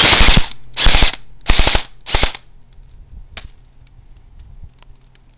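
Echo 1 MP5-A5J airsoft gun firing four short bursts of automatic fire, each shorter than the last, then only a few faint clicks. The gun has jammed.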